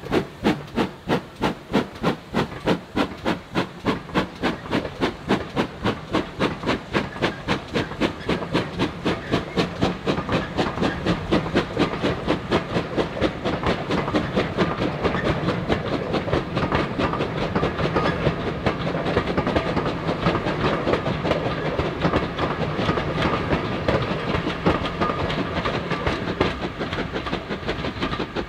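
Steam locomotive working hard, its exhaust beats quickening from about two and a half to about four a second. About ten seconds in the beats blend into a continuous rumble and clatter of the train on the rails.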